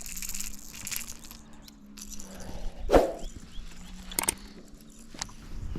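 A steady low hum under a few sharp knocks and clicks, the loudest a thump about three seconds in.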